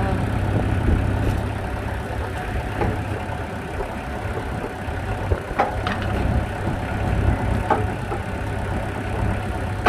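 Engine driving a hydraulic log splitter, running steadily at idle, with a few short sharp knocks scattered through.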